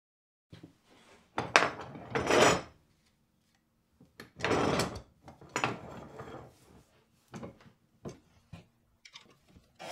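Workbench vise being tightened on a plywood jig part: scattered wooden knocks and clunks from the part and the vise handle, with two longer rubbing stretches of about a second each as the vise screw is wound.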